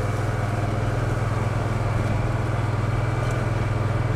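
Farm vehicle's engine running at a steady speed while driving over a field track, heard from inside the cab as a constant low drone.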